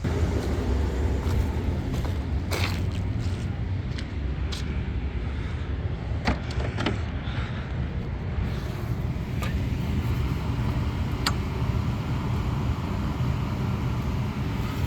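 A few scattered knocks and clicks of someone climbing down a ladder, over a steady low rumble.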